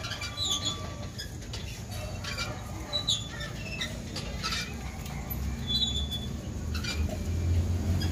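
Outdoor ambience: a steady low rumble that swells near the end, with scattered short high chirps and clicks and one brief high note about six seconds in.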